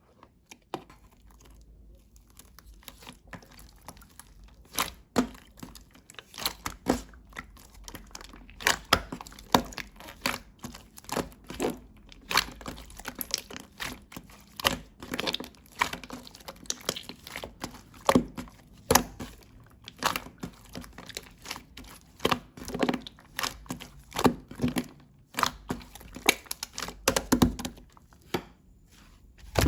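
Mixed slime being pressed, stretched and folded by hand, giving irregular sharp pops and crackles several times a second with soft squishing between them.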